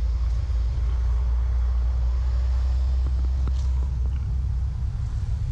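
Steady low rumble of wind buffeting the microphone, with a few faint clicks about halfway through.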